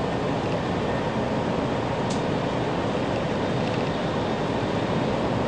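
Tokaido Shinkansen train running at speed, heard inside the passenger car: a steady, even rushing noise.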